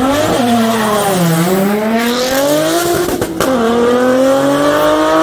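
Drag-racing cars accelerating hard away down a street, the engine pitch climbing through the gears with sudden drops at upshifts shortly after the start and about three and a half seconds in. A short crack comes at the second shift.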